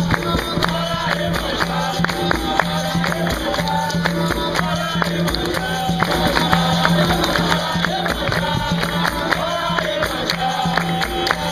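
Capoeira roda music: a group singing in chorus over steady hand clapping, pandeiro jingles and an atabaque drum beat.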